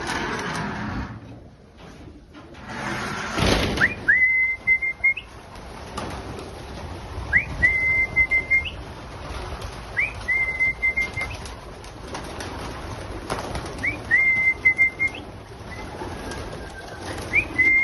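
A whistled call repeats five times, about every three seconds: each is a quick upward sweep into a short, steady, broken high note. It sounds among pigeons in a loft, with bursts of rustling in the first few seconds.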